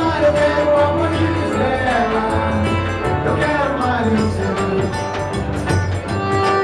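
A live forró band playing an instrumental passage between verses: a nylon-string acoustic-electric guitar with a zabumba drum beaten with a mallet keeping a steady beat.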